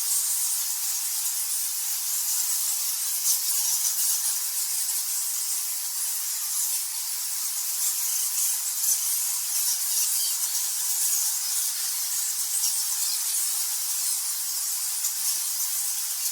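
A colony of bats chittering all at once: a dense, steady, high-pitched chatter of countless tiny squeaks, with no low sound beneath it.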